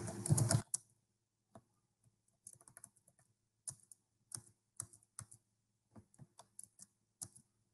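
Typing on a computer keyboard: light, irregular keystroke clicks, sometimes several in quick succession, with short gaps between.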